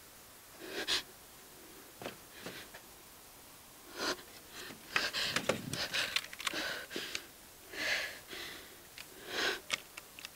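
A woman's sharp, audible breaths, several separate puffs, with a cluster of knocks and rustles in the middle as a rifle is pulled from a wooden frame and handled.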